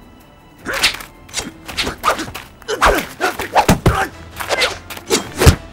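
Hand-to-hand knife fight sound effects. After a quiet first second comes a quick run of more than a dozen sharp hits, thuds and swishes of blows, the last one the loudest.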